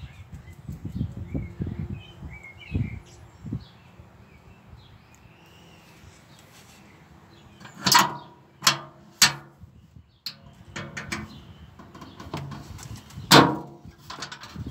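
Faint bird chirps in the first few seconds, then sharp knocks: three in quick succession about eight seconds in and a louder one near the end.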